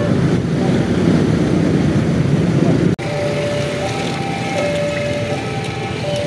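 Railway level-crossing warning alarm sounding its alternating two-tone signal over the heavy rumble of a passing train. About three seconds in, the rumble drops off abruptly and the alarm goes on, clear and steady.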